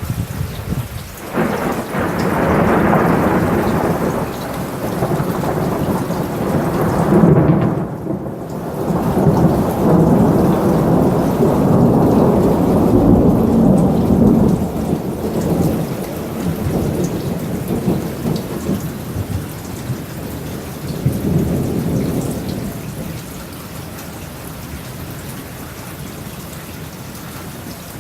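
Thunder during a rainstorm: a long rolling peal breaks in suddenly about a second in and rumbles for some twenty seconds, swelling again a little after twenty seconds, then dies away to the steady hiss of rain.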